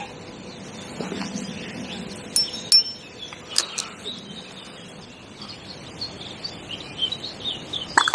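A couple of light metallic clinks about two and a half seconds in, each ringing briefly, from fishing tackle being handled at the bankside. Small birds chirp, more often towards the end.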